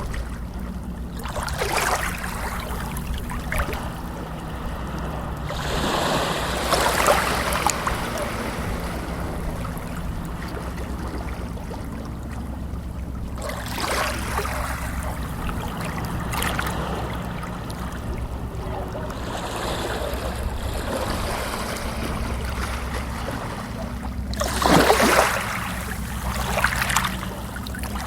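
Water sloshing and splashing in surges every few seconds, the strongest near the end, over a steady low hum.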